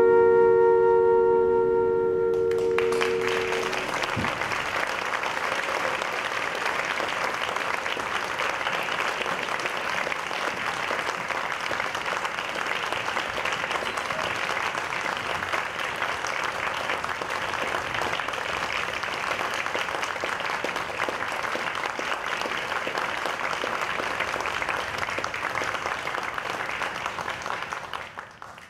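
The music ends on a held chord that stops about three and a half seconds in. An audience then applauds steadily, fading out at the very end.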